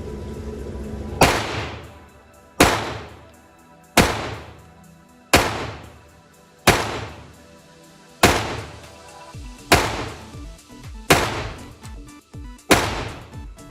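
Walther P22 .22 caliber semi-automatic pistol fired nine times at a slow, steady pace of about one shot every one and a half seconds. Each sharp crack trails off in echo.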